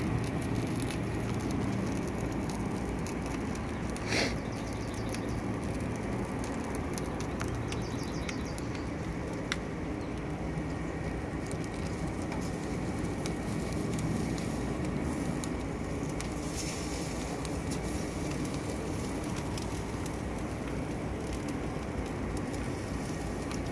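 Mesquite charcoal and whisky wood chips burning hard in a chimney starter, with a ribeye seared over the flames: a steady rush of fire with small crackles and pops throughout, and a louder burst about four seconds in.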